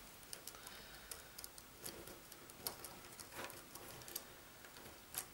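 Faint, irregular light clicks and ticks of thin telephone wires and a small plastic junction box being handled by fingers, about one click every half second to second.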